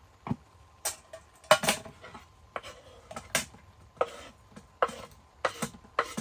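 Irregular clinks and knocks of cookware and utensils being handled, about a dozen sharp strikes, with the loudest clatter about a second and a half in.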